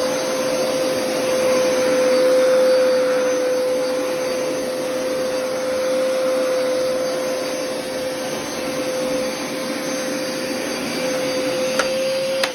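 Vacuum motor running steadily with a high, even whine. Near the end it is switched off with a click and begins to wind down, its pitch falling.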